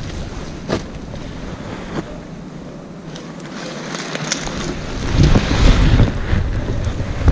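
Wind buffeting the microphone, a low rumbling that dies down briefly and then gusts loudest about five seconds in, with a few faint clicks.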